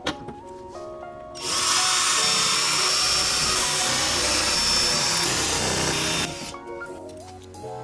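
Cordless drill running at speed and drilling into a metal plate, with a steady high motor whine, starting about a second and a half in and stopping after about five seconds. Background music plays throughout.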